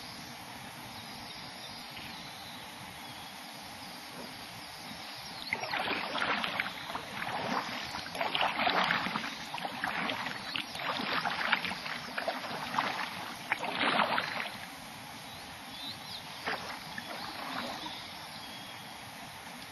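Kayak paddle splashing in water: a run of irregular splashing strokes for about nine seconds starting a few seconds in, then a few fainter splashes near the end, over a steady background hiss.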